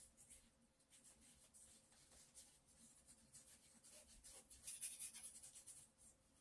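Faint scratching of a thin paintbrush's bristles stroking across paper in short strokes, a little louder about two-thirds of the way through.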